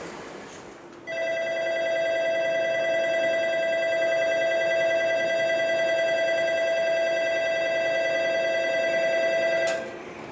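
Electronic platform departure bell ringing steadily on one unchanging chord for about eight and a half seconds, starting about a second in and cutting off near the end: the signal that a train's doors are about to close and it will depart.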